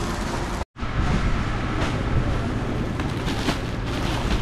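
Steady low rumble of street background noise, broken by a brief dropout under a second in, with a few short rustles later on.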